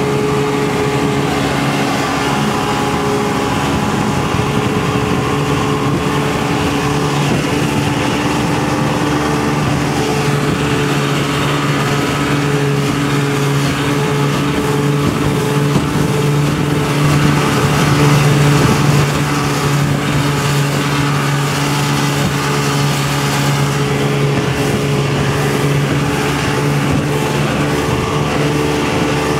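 Motorboat engine running steadily at towing speed, over the hiss of water rushing past the hull and wind, swelling slightly for a couple of seconds just past the middle.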